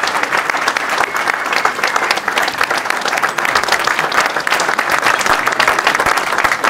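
Audience applauding loudly and steadily, many hands clapping at once.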